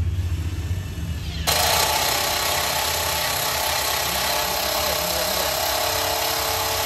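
Makita cordless impact driver driving a long screw into a wooden block: the motor spins it in at first, then about a second and a half in the hammer mechanism kicks in with a loud, steady rattle as the screw bites deeper into the wood.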